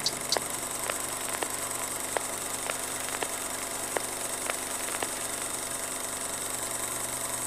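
Old film-projector running noise: a steady mechanical whir with hiss and a low hum, and faint clicks about every half second that die away after about five seconds.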